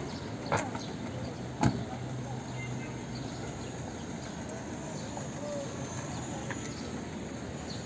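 Open-air market ambience: a steady background of street and crowd noise, with two sharp knocks a little over a second apart near the start, the second one louder.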